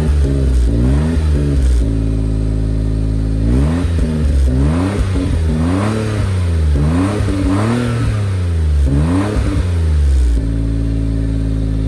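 Suzuki Jimny JB23's K6A 660 cc turbocharged three-cylinder engine idling through a newly fitted Fujitsubo aftermarket muffler, heard close at the tailpipe. It is blipped twice at the start, then revved in a run of quick throttle blips for about seven seconds before dropping back to a steady idle.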